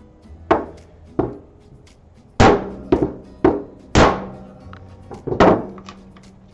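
A chisel being struck to split apart the staves of a small wooden barrel: about seven sharp knocks at uneven intervals, the louder ones ringing briefly. Background music plays underneath.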